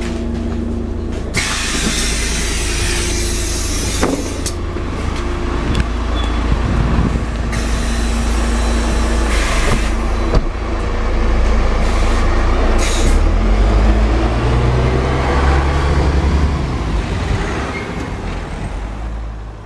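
MAN Lion's City 12C city bus running, with several loud hisses of released compressed air in the first half. Its engine note climbs and grows louder from about twelve seconds in, then the sound fades out near the end.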